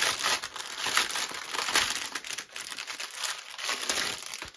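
Clear plastic packaging crinkling and crackling as hands pull a strip of bagged diamond-painting drills out of its cellophane sleeve, dying down near the end.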